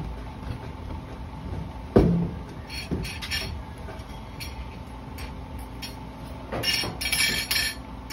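Tableware and furniture clatter: a sharp knock about two seconds in, then a few brief high-pitched clinks of plates or glass near the middle and again later, over a steady low hum.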